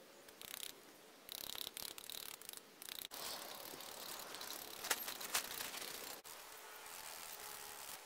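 Rustling of tent fabric and camping gear being handled while a tent is pitched, in irregular bursts, with two sharp clicks about five seconds in. The sound changes abruptly a few times where clips are cut together.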